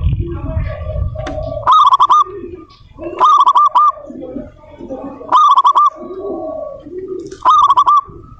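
Zebra dove (perkutut) cooing: four loud, quavering calls about two seconds apart, with softer, lower sounds between them.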